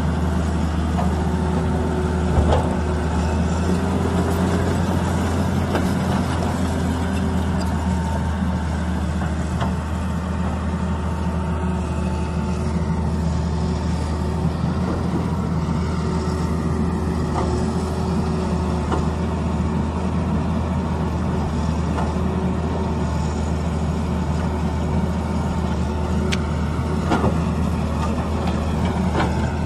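Tata Hitachi tracked excavator's diesel engine running steadily as it digs, with a faint steady whine over the low drone. A couple of sharp knocks of the bucket on rock, about two seconds in and again near the end.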